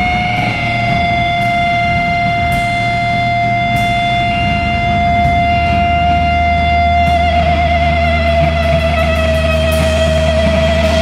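Electric guitar feedback through the amplifiers: one high tone held steady, which begins to waver about seven seconds in as a low bass drone comes in underneath.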